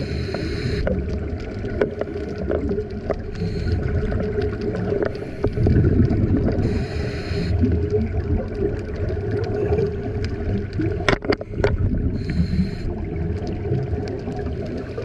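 Underwater sound of a scuba diver breathing through a regulator: a steady low bubbling rumble, broken by a short hiss of breath every few seconds, four in all. A few sharp clicks come about two-thirds of the way through.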